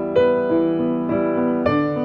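Background piano music, with a new note or chord struck every half second or so.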